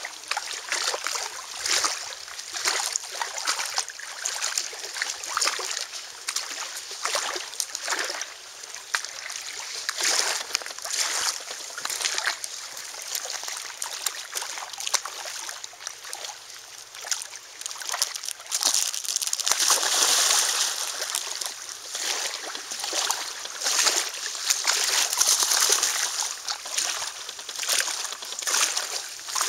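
Lake water lapping and splashing against a rock shore in many small splashes. About two-thirds of the way through the splashing grows louder for several seconds as a golden retriever falls into the water and swims.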